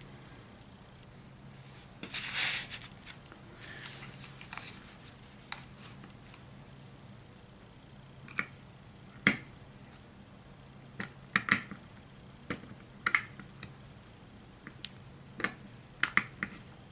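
Small sharp clicks and taps of a screwdriver and a model locomotive being handled on a workbench, scattered irregularly, with a short rustle of handling about two seconds in.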